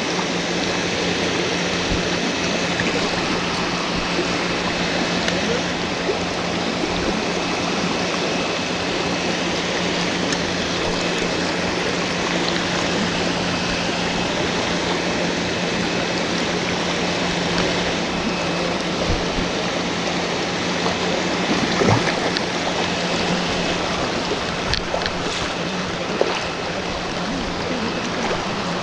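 Fast-flowing creek water rushing steadily, with a low steady hum underneath. One sharp knock cuts through late on.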